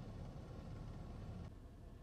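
Faint low rumble inside a pickup truck's cab, dropping to a quieter hush about a second and a half in.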